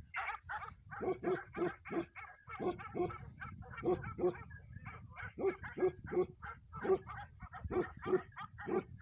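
Bakarwal livestock guardian dog barking over and over, a steady run of short barks at about two to three a second.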